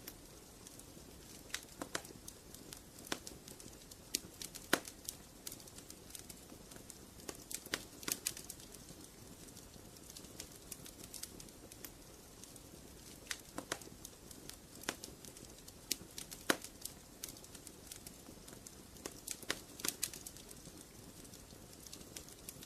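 Wood fire in a fireplace crackling: sharp, irregular pops and snaps over a soft steady hiss of burning, a few louder pops standing out.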